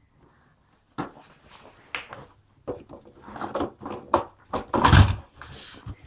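Plastic knocks and clatter from a red canister vacuum cleaner's body being handled by a baby: a string of irregular knocks, with the heaviest thump about five seconds in. There is no motor hum, so the vacuum is switched off.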